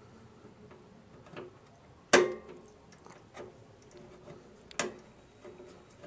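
Screwdriver and bracket screw clicking and tapping against the metal card bracket and case slot while a video card is screwed in: a few scattered sharp metallic clicks, the loudest about two seconds in and another near five seconds.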